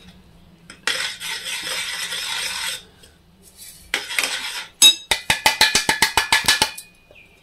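Dry ground sesame and peanut mixture sliding out of a steel bowl into a steel pan with a soft hiss, in two pours. Then about a dozen quick metallic taps as the bowl is knocked against the pan's rim to shake out the rest.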